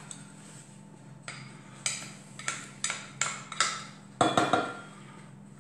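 A utensil clinking and knocking against a pot and dish as butter is put into the water: a run of short knocks about two a second, with a louder cluster about four seconds in.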